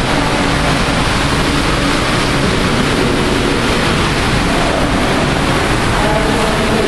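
Steady, loud rushing noise, even and unbroken throughout.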